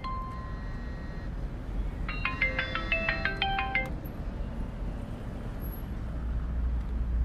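Music: two quick runs of bright, chiming stepped notes over a steady low rumble, cutting off abruptly near the end.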